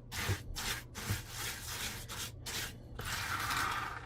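A spoon stirring crispy rice cereal through melted chocolate and peanut butter in a bowl, giving repeated rustling, scraping strokes. A longer scrape comes near the end.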